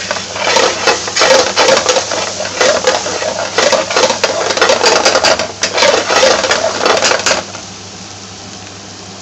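Metal spoon stirring and scraping vegetables in a metal frying pan, a rapid clatter of scrapes and knocks. The stirring stops about seven seconds in, leaving the steady sizzle of the vegetables frying in oil.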